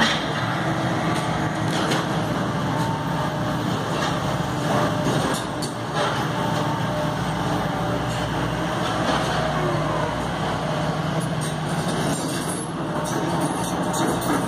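Demolition excavator's diesel engine running steadily, with a few knocks from the grab and debris about 2, 5 and 6 seconds in.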